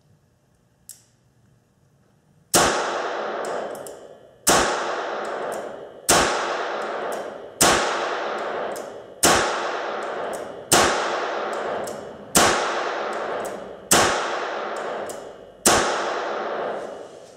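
Nine shots from an H&R 949 .22 Long Rifle revolver fired double action, about one every one and a half seconds, each with a long echoing tail in the indoor range. Every round goes off with no misfire, the sign that the stronger replacement mainspring has cured the light strikes. A faint click comes about a second in, before the first shot.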